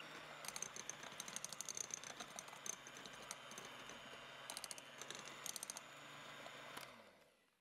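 Electric hand mixer running at low speed, its wire beaters whipping egg-yolk and oil batter and clattering against the glass bowl in quick runs of clicks. Near the end the motor winds down and stops.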